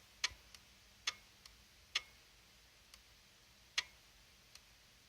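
Badly worn-out Futaba clicky keyboard switch from a Codegen CG-101F pressed about four times, each a sharp click followed by a fainter tick. This is the sound of a badly worn-out switch.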